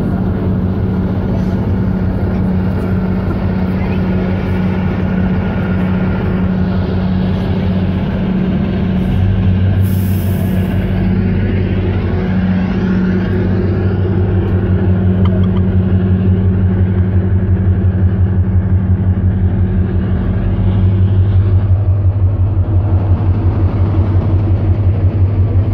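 A tugboat's diesel engine running, a steady deep drone with a pulsing beat. It grows louder about halfway through and again near the end, with a brief hiss about ten seconds in.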